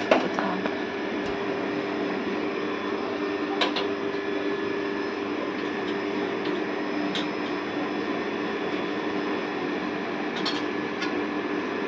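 A steady mechanical hum with an even low tone, with a few light clicks of a spoon against the cooking pot scattered through it.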